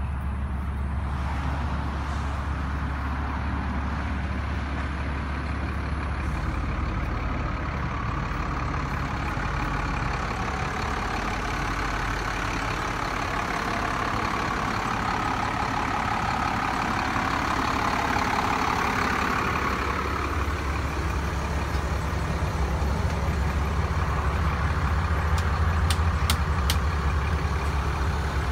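A 2004 fire pumper truck's diesel engine idling with a steady low hum. A few short clicks come near the end.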